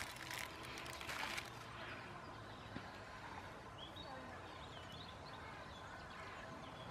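Small clear plastic parts bag crinkling as it is handled, stopping after about a second and a half. After that, faint outdoor background with a few faint bird chirps.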